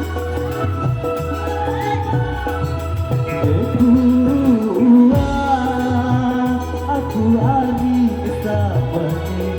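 Sasak song sung live to electronic keyboard accompaniment: steady keyboard chords and bass, with the voice coming in strongly about four seconds in on long, wavering held notes.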